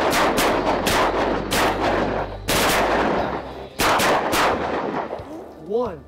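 A volley of shotgun fire from several waterfowl hunters shooting at ducks over decoys: about ten sharp shots in quick clusters over the first four and a half seconds, each echoing. The shooting then dies away.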